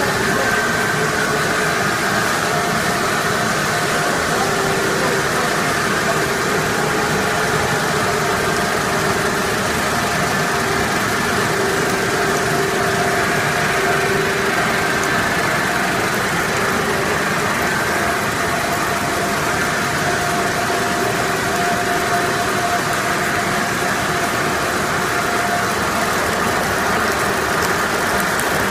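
Fried snack pellet production line machinery running steadily: a constant mechanical hum of motors and conveyors, with a few steady tones that fade in and out.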